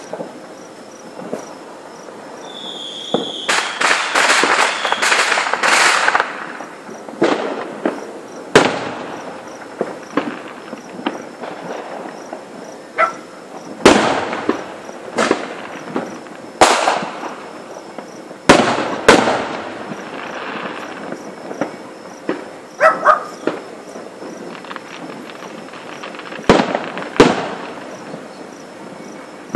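Aerial fireworks display: shells bursting with sharp bangs every few seconds, the loudest about 8, 14 and 18–19 seconds in. A brief high whistle leads into a thick run of crackling about three to six seconds in.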